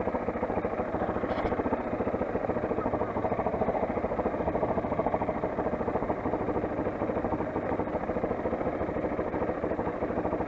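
Motoland XR 250's single-cylinder four-stroke engine running at low, steady revs, its firing pulses even throughout with a slight swell in the middle.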